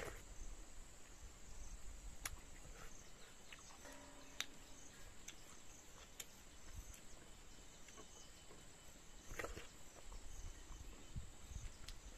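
Faint insect chirring held on one steady high note, with scattered soft clicks and chewing sounds of someone eating rice and greens by hand from a plate.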